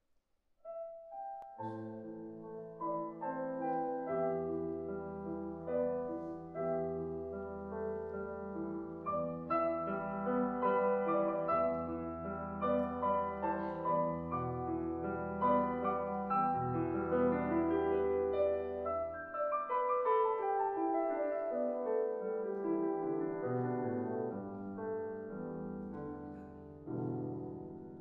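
Grand piano playing the introduction to a choral song, starting about half a second in: a flowing line of notes over held low bass notes, easing off near the end with a final chord.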